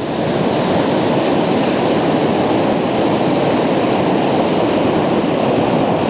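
Ocean surf breaking on a beach: a steady, even rush of breaking waves and foam. The sound comes from the bubbles the breaking waves form.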